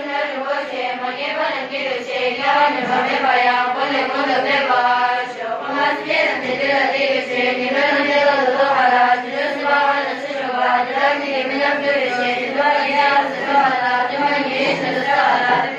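A group of girls chanting a Tibetan prayer together in unison, a steady rhythmic recitation.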